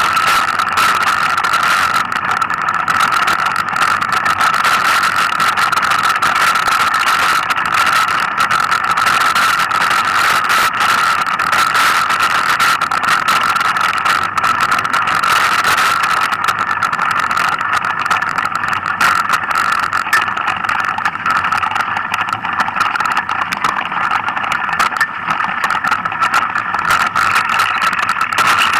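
Mountain bike riding over a rough forest trail, heard through the mounted camera: a steady high whine runs throughout, never changing pitch, over constant rattling and clatter from the bike and camera bouncing on the ground.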